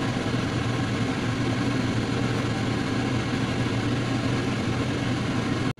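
A steady low machine-like hum with a hiss over it, even in level, that cuts out abruptly near the end.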